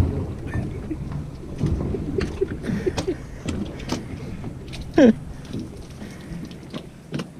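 Irregular knocks, clicks and clatter on the deck of a small fishing boat over a patter like rain or splashing water, with a short, loud falling squeal about five seconds in.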